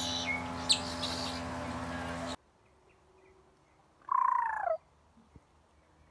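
Birds chirping over a steady low hum, which cuts off abruptly about two seconds in. After a quiet stretch, one short animal call falls in pitch about four seconds in.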